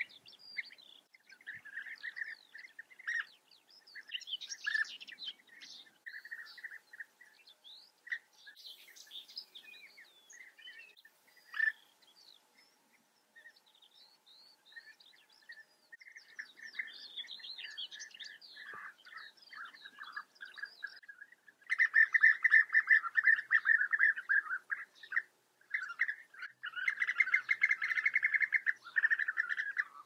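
European bee-eaters calling: many overlapping short, rolling trilled notes, becoming much louder and denser about two-thirds of the way through.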